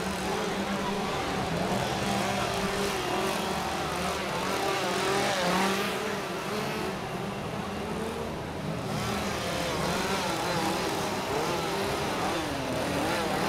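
Several chainsaws revving at once, their engine pitch repeatedly rising and falling.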